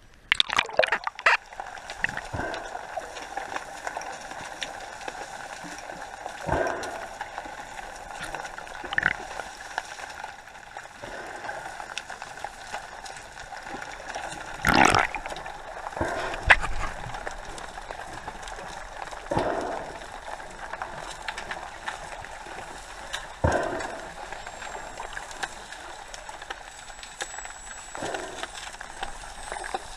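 Sea water sloshing and splashing, with short louder splashes every few seconds and a cluster of sharp clicks at the start.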